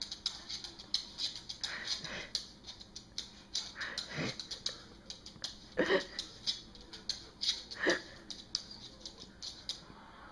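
A beagle scooting its itchy rump across a wooden floor: a dense run of quick scratchy rubbing sounds. Every two seconds or so comes a short sound that sweeps downward in pitch, the loudest two past the middle.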